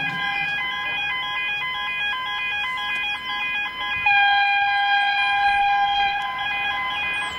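Railway level crossing warning bells ringing as a train approaches: a steady electronic ringing of several high tones, with one pitch flipping back and forth in a quick regular rhythm, louder from about halfway through.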